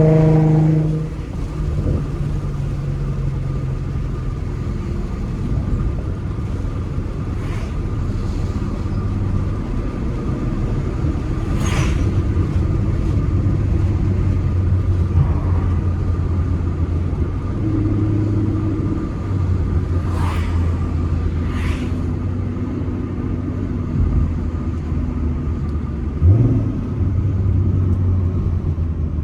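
A 2014 Ford Mustang's 3.7-litre V6, fitted with a Roush axle-back exhaust and BBK shorty headers, heard on the move. The revs fall away at the start, then the engine drones steadily at cruise, its pitch shifting a few times, with a brief rise in revs near the end.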